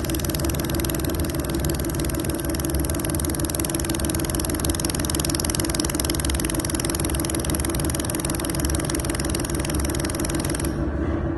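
Handheld laser welding machine welding 1 mm stainless steel sheet: a steady hiss while the torch fires, stopping about a second before the end, over a constant low machine hum.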